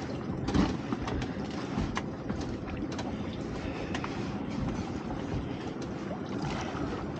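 Wind on the microphone and choppy water lapping against a small boat's hull, a steady rushing noise with a few light knocks.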